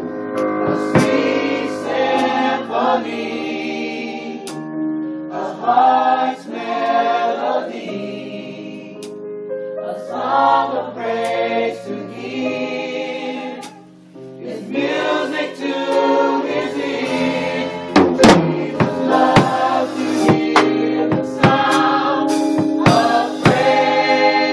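Gospel choir singing a praise song in rehearsal, the voices swelling and easing, dropping away briefly a little past halfway before coming back in full.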